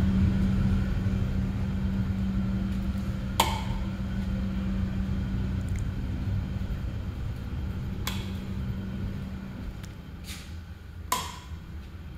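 Central air conditioning running: a steady low hum that slowly fades, with a few sharp knocks, the loudest about eleven seconds in.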